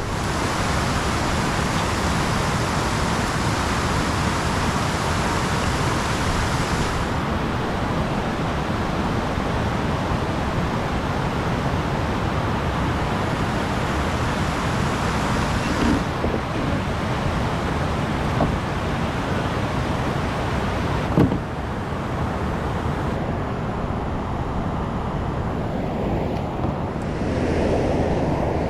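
Steady rush of river water spilling over a low-head dam, its tone shifting a few times, with one sharp knock about 21 seconds in.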